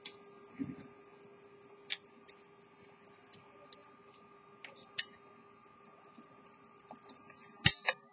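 Edmond Mathey-Tissot minute repeater pocket watch ticking faintly while it is handled, with scattered sharp clicks of the case and fingers over a steady low hum. About seven seconds in, a louder high whirring hiss starts with a sharp click near the end, as the repeater mechanism is set going just before it strikes.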